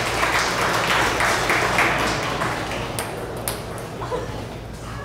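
Crowd clapping after a table tennis point, dying away after about two and a half seconds, followed by two sharp ticks of a celluloid table tennis ball bouncing.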